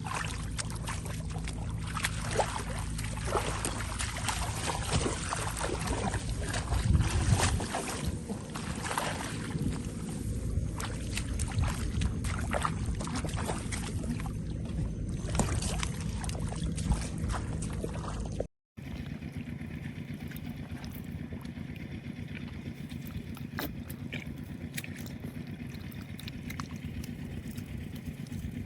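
Splashing and sloshing in shallow muddy paddy water, with many small, irregular splashes, as fish are caught by hand. A little past halfway it cuts off abruptly to a quieter, steady low hum with faint splashes.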